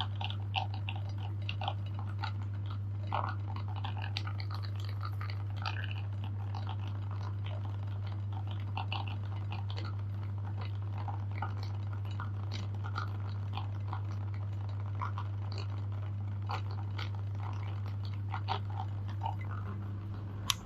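Electric meat grinder running with a steady low hum while chocolate bar is crunched and cracked in the feed screw, giving many irregular crackles and snaps over the motor. The hum cuts off at the very end.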